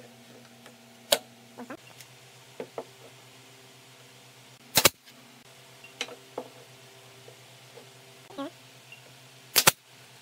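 Wooden cart parts knocking against a wooden workbench during assembly: scattered light knocks and clatters, with two loud, sharp double knocks, one about halfway and one near the end, over a faint steady hum.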